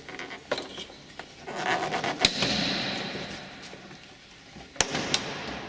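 Plastic clicks and rustling as a wiring-harness connector and its plastic retaining pin are worked loose from a RAV4's plastic rear bumper cover. There is a sharp click about two seconds in, with a longer rustle around it, and two more clicks near the end.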